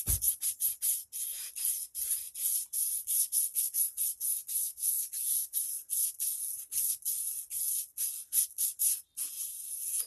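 Steel blade being sharpened by hand on sandpaper: a steady run of short, hissy rubbing strokes, several a second, pushed back and forth under firm pressure along the full length of the paper. The strokes stop abruptly at the very end.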